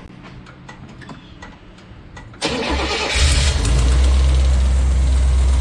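Car engine cranked by its starter and catching about two and a half seconds in, then settling into a steady, deep idle. The starter turns it over briskly now that the ground connections have been cleaned, so the starter may not need replacing.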